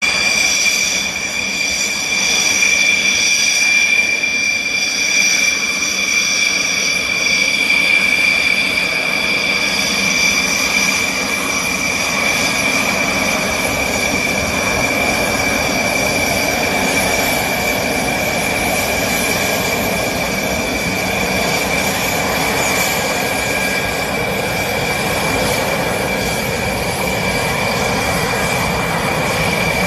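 Rafale fighter jets' turbofan engines running at low power: a steady high-pitched whine with higher tones above it, over a rushing noise that swells somewhat after about halfway.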